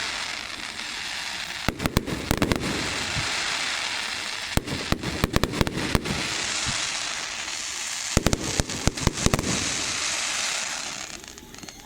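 Aerial fireworks display: three clusters of rapid sharp bangs a few seconds apart, over a steady hiss that fades out near the end.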